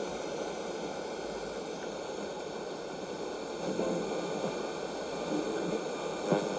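Bush TR130 transistor radio hissing with static, tuned off-station between broadcasts, with faint snatches of signal coming through and a short crackle near the end.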